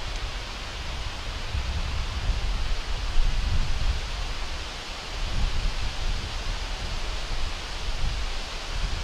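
Outdoor wind noise: a steady hiss with an uneven, gusting low rumble of wind buffeting the camera microphone.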